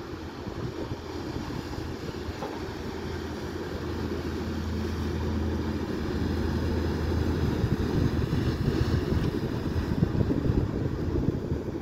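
Express passenger launch passing close at speed: a steady low engine hum under the rush of its bow wave and wake, growing louder as it comes by, with wind buffeting the microphone.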